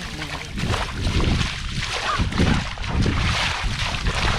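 Water sloshing and splashing as hands and feet work through shallow muddy field water, with wind buffeting the microphone in uneven low rumbles.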